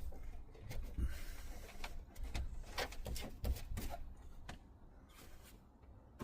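Scattered knocks, taps and rustling of someone working inside a van, thinning out after about four seconds.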